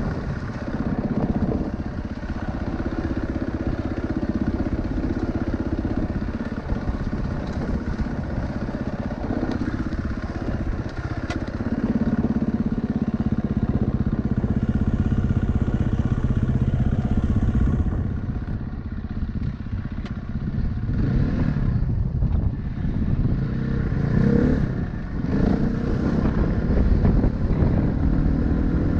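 Vehicle engine running on a rough mountain trail, its pitch shifting with changing load, with clattering and a run of knocks and jolts in the second half.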